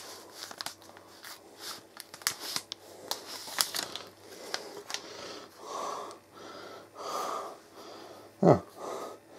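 Rustling and light clicking as a new tablet and its plastic packaging are handled. A few soft breathy exhales follow, with a short low vocal sound near the end.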